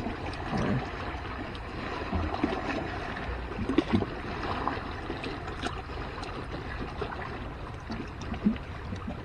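Steady seaside noise of water and wind at the shore, with a few small clicks and taps.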